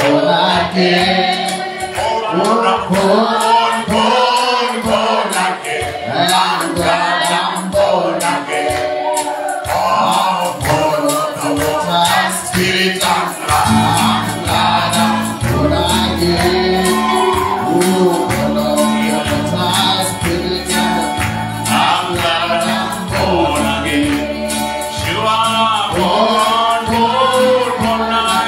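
Gospel worship music: a choir singing over a steady percussive beat, with a bass line coming in about halfway through.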